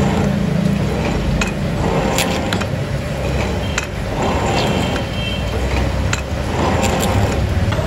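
Workshop noise: a steady low machinery rumble with scattered metallic clinks and knocks, and faint voices in the background.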